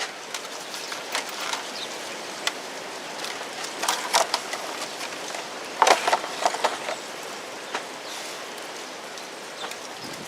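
Hands handling a new battery cable and its packaging: scattered light clicks and rustles, with two louder clattery bursts about four and six seconds in, over a steady outdoor hiss.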